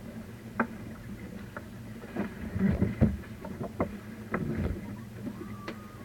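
Motorboat engine humming steadily, with scattered knocks and splashy thumps; the heaviest thumps come about two and a half to three seconds in.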